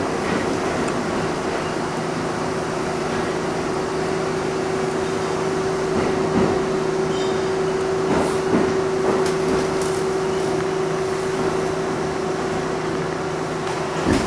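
Inside a moving R62A subway car in a tunnel: a steady rumble of wheels on rail under a constant hum. A few sharp clicks come about six to nine seconds in.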